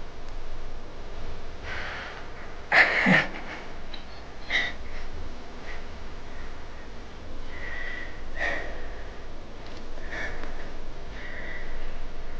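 A baby kitten's small sounds: one loud, brief, breathy burst about three seconds in, then a few short, faint, high-pitched squeaks.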